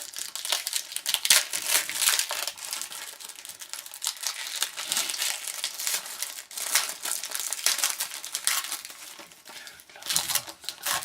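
Crinkling and tearing of a hockey card pack wrapper being opened and handled by hand, a dense run of crackles throughout.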